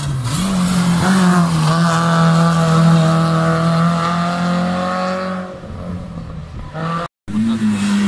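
Rally car engine at high revs: a quick rise in pitch at the start, then a steady high note held for several seconds that fades away. After a sudden cut about seven seconds in, another rally car's engine is heard at a similar pitch.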